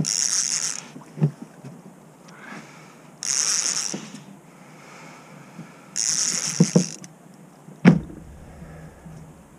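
A heavy conventional fishing reel cranked in short bursts about three seconds apart, reeling in a hooked sturgeon between lifts of the rod. There are a few light knocks, and a single loud thump near the end.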